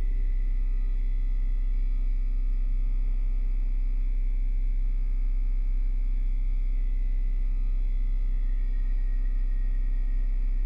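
Steady low electronic drone, an unchanging deep tone with fainter high tones held above it.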